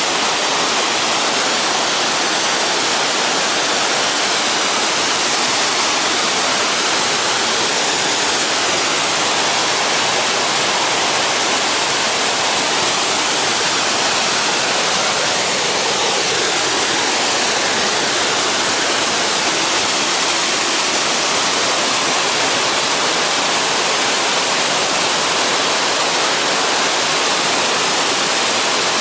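Pistyll Cain waterfall: a loud, steady rush of falling water that holds unchanged throughout.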